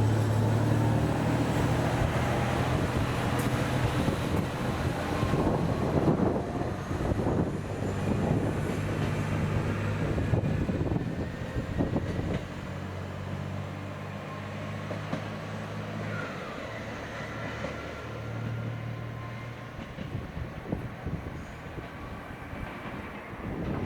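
Train moving along the platform: a steady low machine hum with wheels clacking over rail joints. The clatter dies away after about twelve seconds, leaving a quieter hum.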